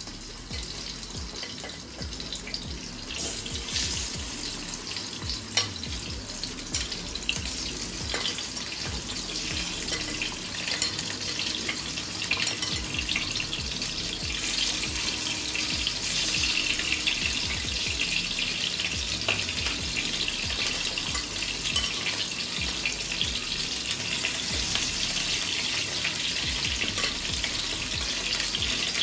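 Peeled pointed gourds sizzling in hot mustard oil in a non-stick frying pan as they are laid in one by one; the sizzle grows gradually louder as the pan fills, with a few light clicks.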